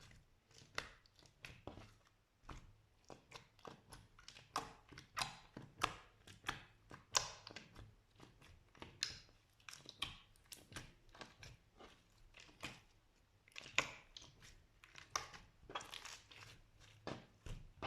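Slime being squeezed and poked by hand, giving an irregular run of short crackling, crunching pops, several a second.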